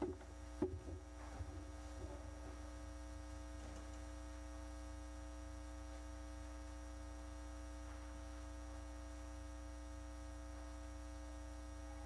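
Steady electrical mains hum, a low drone with a fixed buzz above it, from the sound system. A few soft knocks in the first second or so, the loudest just under a second in.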